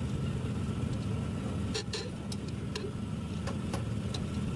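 Freshly rebuilt Mercedes truck diesel engine running after its first start, a steady low rumble, with several sharp clicks over it from about two seconds in.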